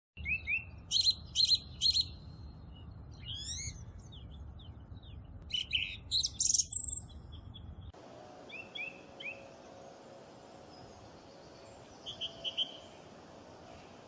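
Song thrush singing in short, clear whistled phrases, several of them repeated two or three times in a row. The song is louder in the first half, over a low background rumble, and fainter and sparser in the second half.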